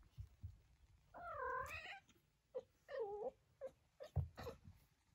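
Four-week-old kittens mewing: a longer wavering mew about a second in and a shorter one around three seconds, with a few brief squeaks. Sharp low thumps from the kittens' scuffling come at the start and about four seconds in, the one near four seconds being the loudest sound.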